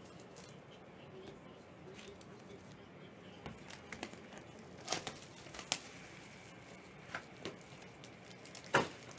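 Trading cards and their plastic packaging being handled with latex-gloved hands: scattered crinkles and sharp clicks over a quiet room background, the loudest near the end.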